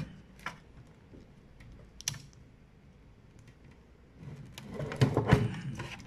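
A few faint clicks of wiring being handled, then a cluster of louder clicks and scrapes about four seconds in: a lead being fitted onto the negative terminal of a fire alarm panel's backup battery.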